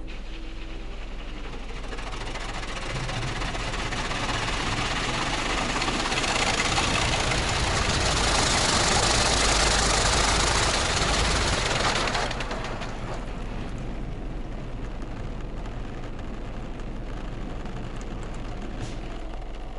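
Automatic car wash heard from inside the car: water jets spraying over the body and windshield, building over several seconds and cutting off suddenly about twelve seconds in. After that a lower, steady machine noise from the wash goes on, over a constant low hum.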